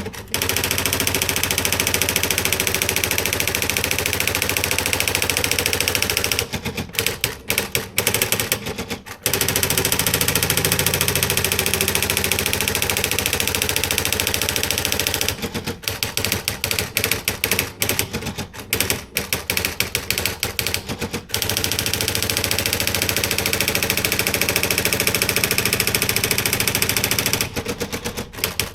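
Panasonic R540 electronic typewriter typing: rapid, continuous runs of print strikes. The runs break into sparser, uneven strikes about a quarter of the way in, again for several seconds past the middle, and near the end.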